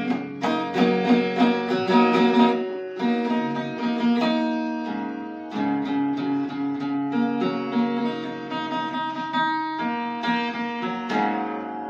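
Guitar played as a melody of plucked single notes, some left ringing into the next. It fades out near the end.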